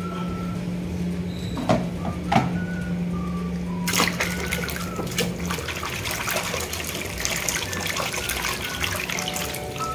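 Muddy water sloshing and splashing in a plastic basin as a hand swishes a toy vehicle through it, much busier from about four seconds in. A couple of sharp knocks come about two seconds in.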